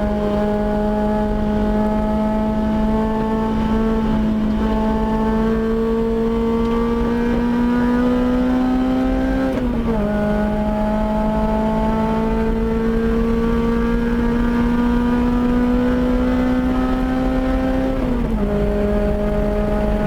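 Lotus Elise four-cylinder engine at full throttle on track, its pitch climbing slowly as it pulls through a gear, dropping sharply at an upshift about ten seconds in, climbing again and dropping at a second upshift near the end.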